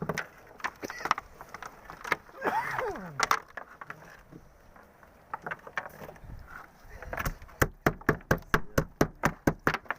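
A quick run of sharp hard knocks, about three or four a second, filling the second half, with a short falling whistle-like call about two and a half seconds in.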